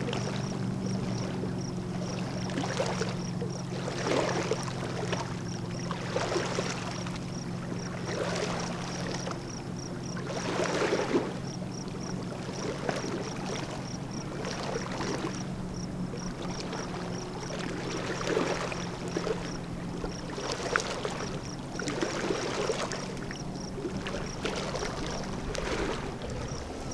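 Small waves lapping at the water's edge in soft swells every second or two, over a steady low hum that stops about twenty seconds in. A faint high ticking, about three a second, runs underneath.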